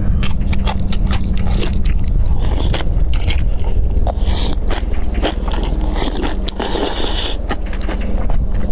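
Close-miked mukbang eating: crunchy chewing of food, with many short clicks and scrapes of utensils, over a steady low rumble.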